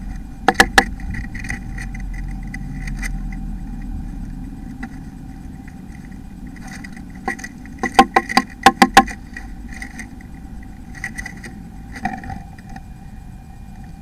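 Blue tit moving about inside a wooden nest box, knocking against the wood in bursts of sharp taps: three just after the start and a quick run of about eight near the middle, over a steady background hum.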